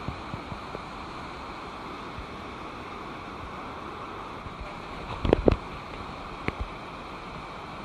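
Steady rush of a waterfall and its rocky stream pouring over boulders. A quick cluster of loud knocks comes about five seconds in, and one more a second later.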